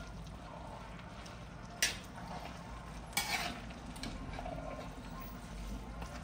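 A large spoon stirring thick rice and beans in a big karahi cooking pot, with two short sharp contacts of the spoon on the pot, about two seconds in and again a little over a second later, over a low steady hum.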